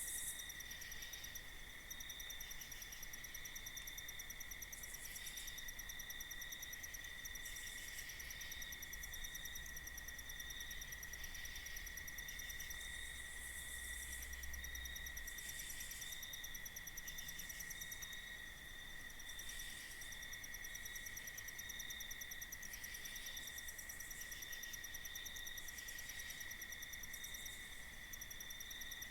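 A faint chorus of night insects, crickets trilling: a steady high drone with faster pulsing trills above it that swell and fade every few seconds.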